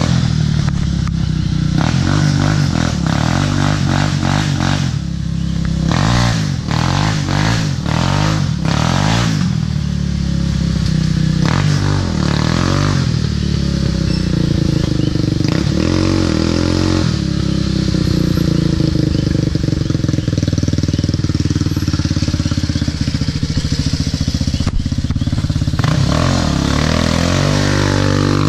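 Quad ATV engine revving up and easing off again and again, its pitch sweeping high and low with each twist of the throttle.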